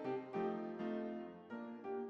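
Background music: a piano-like keyboard melody with several notes at once.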